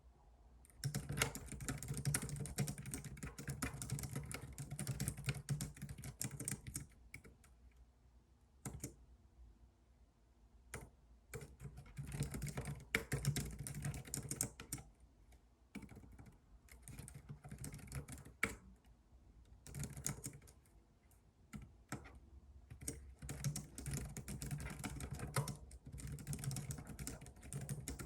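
Typing on a computer keyboard in runs of rapid key clicks lasting a few seconds each, broken by short pauses.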